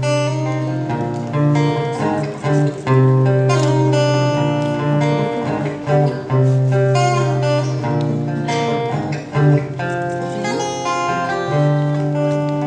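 Acoustic guitar playing a slow instrumental introduction, with a chord struck every two to three seconds over long held low notes.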